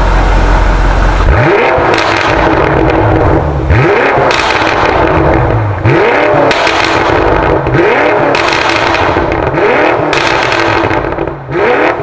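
BMW X6 M (F96) twin-turbo V8 through an Fi valvetronic catback exhaust with its valves open, idling for a moment and then revved six times about two seconds apart. Each rev rises and falls back, and sharp pops and crackles come on the overrun between revs.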